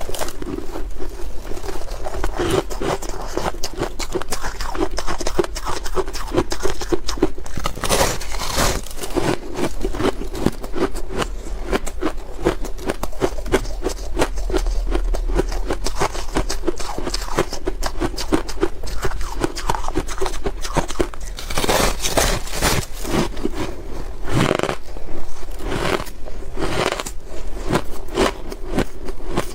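Ice being bitten and chewed close to the microphone: continuous rapid crunching and cracking, with a few louder crunching bites.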